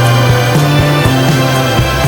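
Background music with steady sustained bass notes and a regular beat.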